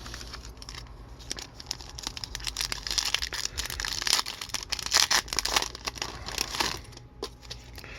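Wrapper of an Upper Deck hockey card pack being torn open and crinkled: a run of crackling and tearing that is busiest in the middle and dies down near the end.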